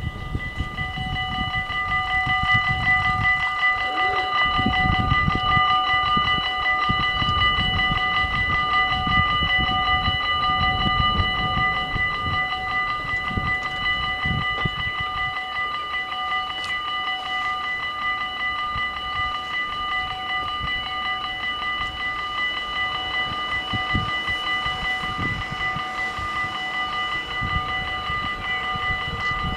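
The level crossing's warning bells start ringing just as the red lights begin to flash, then ring on steadily: the signal that a train is approaching.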